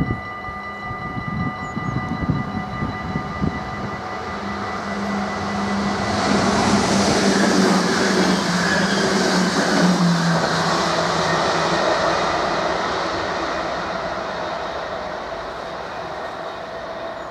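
Level-crossing warning bells ringing, then an NS Sprinter electric train approaching and passing at speed. Its rushing noise peaks in the middle and fades away, with a low hum that drops slightly in pitch as the train goes by.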